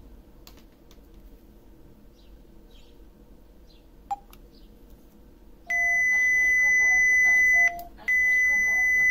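Alarm keypad's buzzer: a short blip as the OFF button is pressed, then a loud, steady, high-pitched beep lasting about two seconds, a brief gap, and a second long beep starting near the end. The keypad is accepting a badge ID cloned with a Proxmark.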